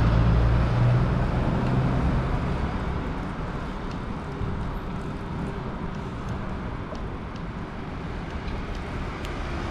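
Wind and road noise of a bicycle ride along a street: a steady rushing over the microphone, with a motor vehicle's low hum fading out over the first couple of seconds.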